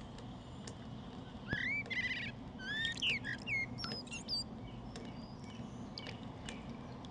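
Wild birds calling: a few seconds of short whistled chirps that glide up and down, with a quick trill among them, starting about a second and a half in, over a steady low background rumble.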